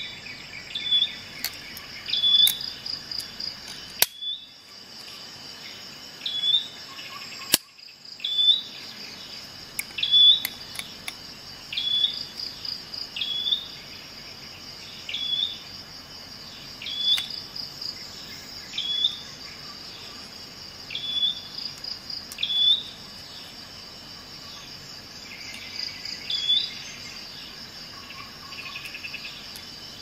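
Insects trilling steadily, with a short high chirp about once a second. Two sharp clicks about four and eight seconds in.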